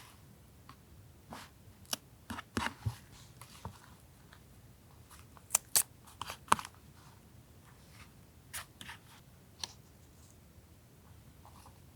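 Paper journaling supplies handled on a desk: scattered sharp clicks and short paper rustles, the loudest a few crisp snaps about halfway through.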